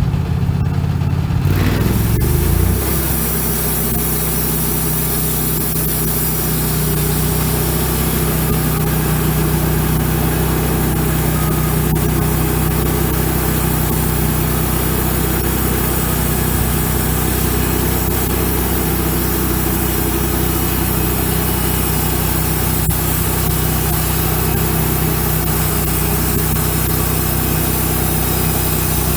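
Wood-Mizer LX150 bandsaw sawmill's small engine running steadily under throttle as the mill saws a board off the top of a pine cant; the engine note shifts briefly about two seconds in, then holds steady.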